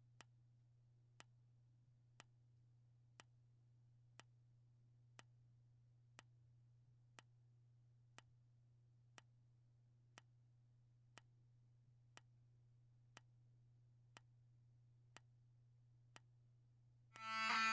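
Faint regular clicks, almost exactly once a second, from a System Sensor SpectrAlert strobe flashing at the sync rate, over a steady faint high-pitched whine and a low hum. Music with guitar starts just before the end.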